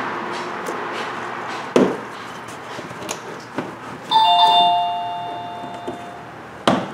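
About four seconds in, a two-note electronic chime sounds, high then low, and fades over about two seconds. Sharp plastic knocks and clicks come from the fender liner being pushed into place, loudest just before two seconds in and again near the end.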